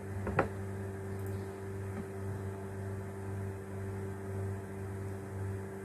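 Steady low hum with a few even overtones, unchanging throughout, with one short click about half a second in.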